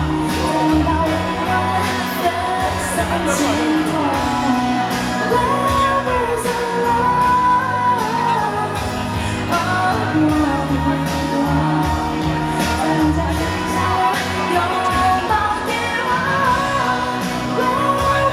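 Live pop song: a woman sings the lead melody over a band with a steady drum beat.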